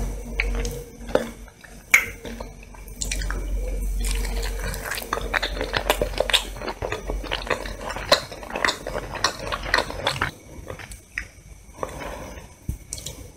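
Fingers pulling apart pieces of roast chicken: a dense run of wet, sticky crackles and clicks of tearing skin and meat, thinning out near the end as a piece is dipped into a bowl of sauce.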